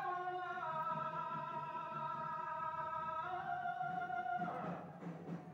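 Background music: a slow melody of long held notes that steps to a new pitch about half a second in and again after three seconds, then fades near the end.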